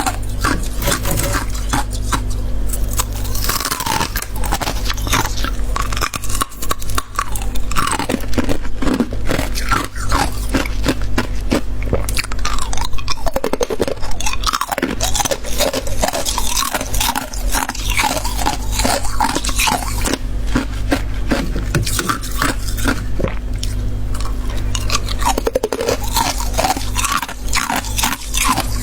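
Freezer frost being bitten and chewed close to the microphone: dense, irregular crunching with some scraping, over a steady low hum.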